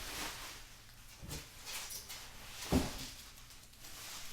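Plastic bubble wrap and packaging rustling as items are handled, with one dull thump a little under three seconds in as something is set down.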